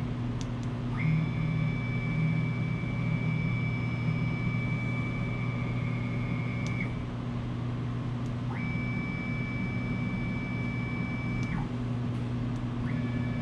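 Boxford 190VMC benchtop CNC mill running with its spindle turning, a steady hum, while the table's axis drive whines high and steady in three stretches of a few seconds each as the table is jogged with the X and Y buttons.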